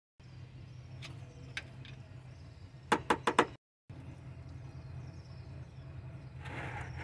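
A truck's spin-on oil filter being twisted off by hand: light clicks, then four sharp metallic knocks in quick succession about three seconds in, and a short scrape near the end, over a steady low hum.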